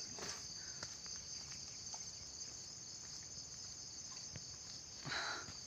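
A steady, high-pitched chorus of insects with a fine pulsing texture. A few faint clicks and a brief rustle come near the end.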